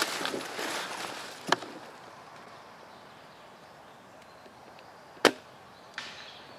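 Rustling for the first two seconds with a couple of sharp clicks, then one loud, sharp crack about five seconds in.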